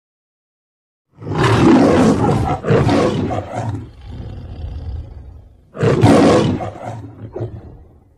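MGM logo lion roaring. Starting about a second in come two loud roars, then a quieter growl, then a third roar that trails away near the end.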